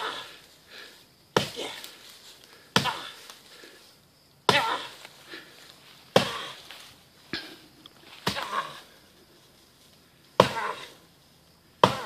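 Axe chopping into the trunk of a fallen tree: about eight sharp strikes, roughly one every second and a half, each dying away quickly.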